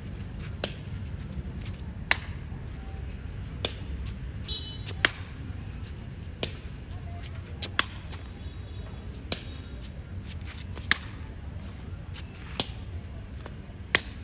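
A Khmer shuttlecock being kicked back and forth between players: a sharp slap of foot on shuttlecock about every one and a half seconds, about ten in all, with lighter taps between, over a steady low background rumble.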